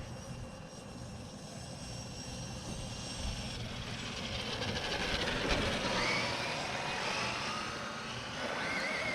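Electric motor of a Traxxas RC car whining as it drives, its pitch gliding up and down with the throttle, growing louder over the second half.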